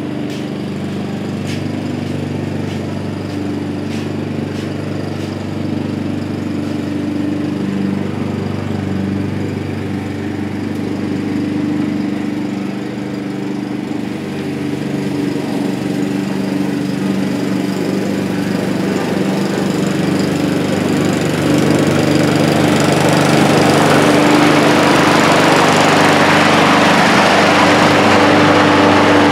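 Honda self-propelled walk-behind lawn mower running steadily while mowing. It grows louder through the last third as the mower comes closer.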